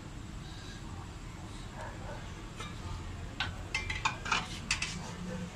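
A quick run of sharp clinks and knocks of kitchenware, starting about three and a half seconds in and lasting about a second and a half, over a low steady hum.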